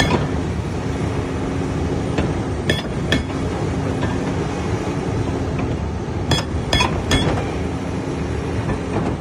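Excavator running steadily while its hydraulic attachment works metal, giving sharp ringing clanks: a pair about a third of the way in and three more in quick succession about two-thirds through.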